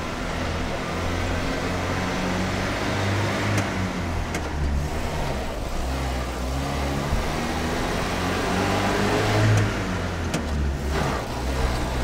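Renault R2067 Goelette truck's engine running as the truck drives off, its note shifting up and down, with a few light clicks.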